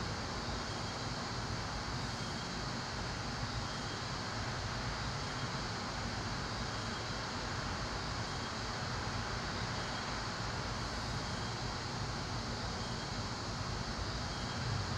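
Steady rushing, wind-like noise with a low rumble underneath, holding level without breaks.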